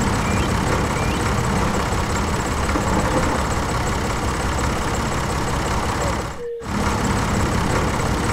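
A tractor engine running steadily at a low, rough idle, dropping out briefly about six and a half seconds in.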